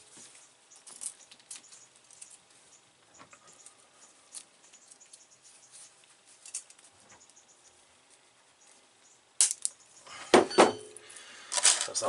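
Stripping an armoured power cable by hand: faint scraping and small clicks, then a few loud metallic clinks and knocks near the end.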